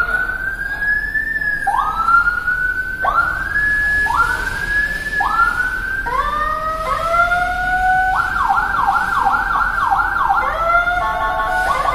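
Replica Whelen HHS3200 electronic siren sounding through its speaker and switching between tones: slow rising wails that hold their pitch and then cut off, then a fast yelp of about three sweeps a second, then short rapid stepped tones near the end.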